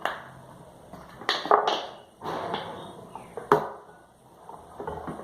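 A spoon and pot knocked and handled while mixing slime ingredients: a few sharp knocks and clatters, two close together about a second and a half in and a loud one midway, with scraping and rustling between.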